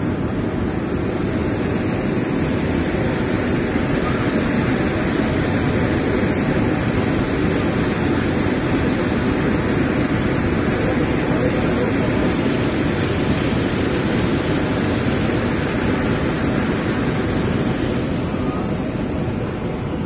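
Waterfall whitewater rushing over boulders: a loud, steady noise of falling water that never lets up.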